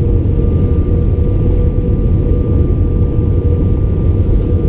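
Airbus A319 cabin noise on final approach, heard from a window seat over the wing: a steady, loud rumble of jet engines and rushing air, with a steady engine whine running through it.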